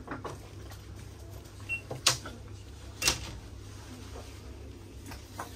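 Steady low hum of shop background with a few light handling clicks, and two sharper clicks about two and three seconds in.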